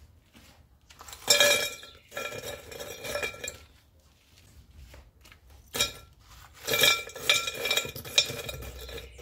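Small crushed-stone gravel (pedrisco) poured by the handful into a terracotta pot, rattling and clinking against the clay in several bursts with quiet gaps between them. The gravel forms the drainage layer at the bottom of the pot before the potting soil goes in.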